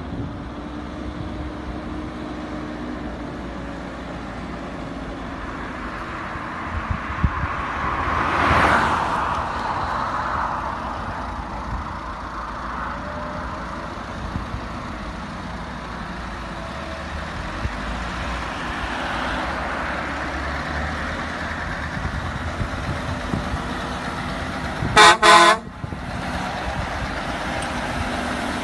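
Heavy truck running on the road, its noise swelling as it passes close about a third of the way in. A short, loud horn blast sounds near the end.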